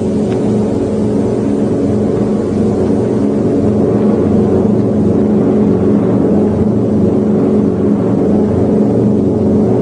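The B-17 Flying Fortress's four Wright R-1820 Cyclone radial engines droning steadily in flight, heard from inside the aircraft.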